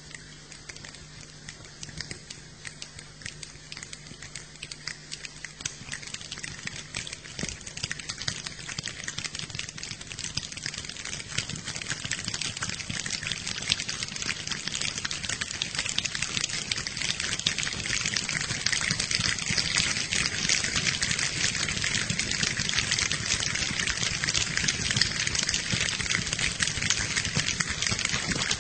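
Rain falling, a dense patter of drops that starts light and builds steadily heavier and louder.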